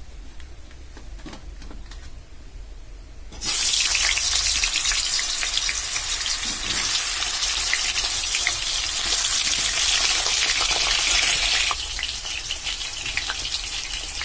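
Potato pieces going into hot oil in a kadai: a loud frying sizzle starts suddenly about three and a half seconds in, then eases a little near the end.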